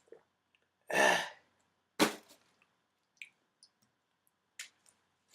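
A person's loud, breathy exhale after drinking, followed about a second later by one sharp knock and a few faint clicks.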